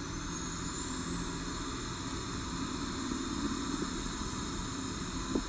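Tour bus driving, heard from inside the cabin: a steady low engine and road rumble with a faint high whine that slowly rises in pitch.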